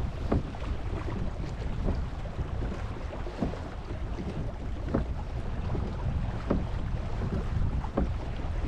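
Wind buffeting the camera microphone over water moving past a kayak, with short light knocks every second or so.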